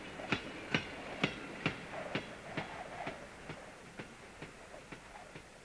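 Railway wagon wheels clacking over rail joints at a steady rhythm, about two clacks a second, fading gradually as the train rolls on.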